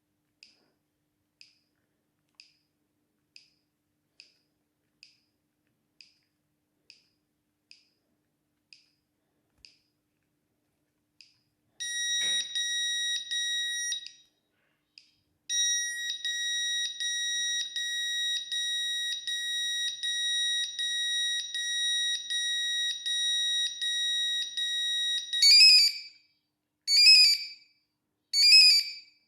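Siemens S6 mobile phone playing its monophonic electronic ringtones. Faint short beeps come about every two-thirds of a second for the first ten seconds. Then a high, fast-warbling ring plays for about two seconds, stops, and runs again for about ten seconds, followed near the end by loud separate chirps about every second and a half.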